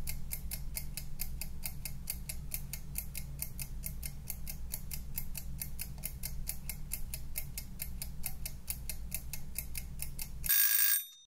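Wind-up kitchen timer ticking fast, about five ticks a second, over a low steady hum, then its bell ringing briefly about ten and a half seconds in before the sound cuts off.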